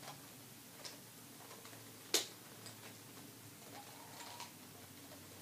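Plastic clicks of a QJ 3x3 Rubik's cube as its layers are turned and bitten with the teeth. The clicks are scattered and faint, with one sharp, louder click about two seconds in.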